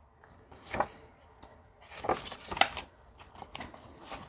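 Paper banknotes and the clear plastic pages of a ring-bound cash binder being handled and turned over: a few short, quiet rustles and crinkles.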